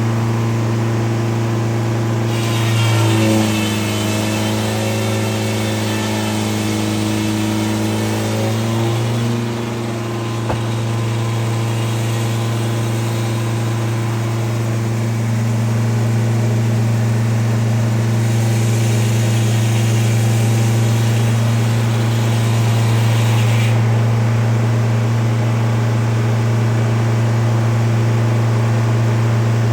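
An engine running steadily with a constant low hum. A hissing noise joins it for several seconds near the start and again past the middle.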